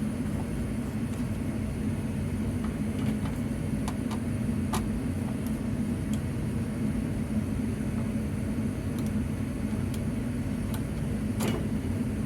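Steady low mechanical hum of background machinery, with a few faint clicks from hand work disconnecting the fire alarm panel's main power.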